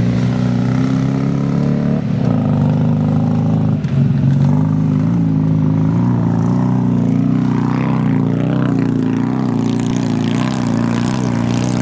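Vintage motocross motorcycle engines running loud and steady, their pitch rising and falling as the throttle changes.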